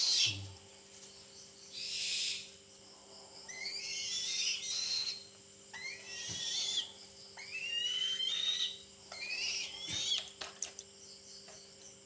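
A young eagle making a series of high, rising whistled calls, about one every two seconds, begging for food while being fed.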